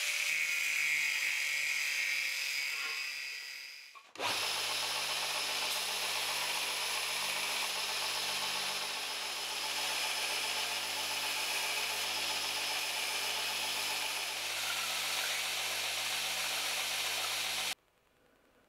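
An angle grinder sanding the edges of the brass fitting on an antler knife handle, its whine dying away after a few seconds. Then a belt grinder runs with a steady hum while a small piece is held to the belt, stopping abruptly near the end.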